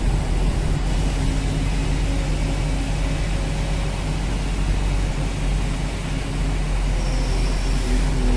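Heavy truck pulling a long flatbed trailer as it drives slowly away, its engine running steadily with a low hum.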